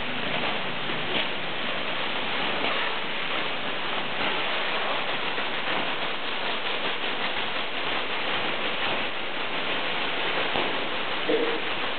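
Many thin plastic (nylon) bags being crumpled and rubbed in the hands at once by a group of people, a dense steady crackle that imitates rainfall. A brief short tone sounds near the end.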